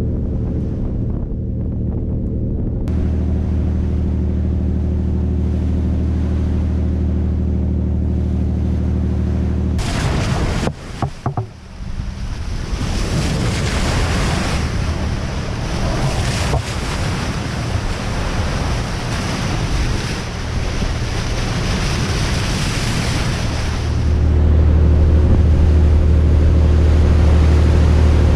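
Steady low drone of a Nordhavn 76 trawler yacht's diesel engines underway. About ten seconds in it cuts to rushing water and wind against the hull for about fourteen seconds, then the engine drone returns near the end.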